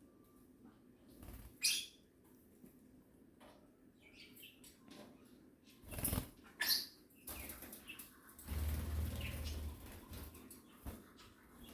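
A pet eye-ring lovebird moving about: several short, sharp rustles and wing flutters, the longest a second or so of fluttering about two-thirds of the way through, with a few faint chirps.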